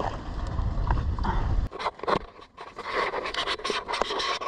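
Low wind rumble on the microphone that cuts off abruptly under two seconds in, then scattered scuffs, scrapes and light knocks as the e-bike is laid on the asphalt and the rider walks across the pavement.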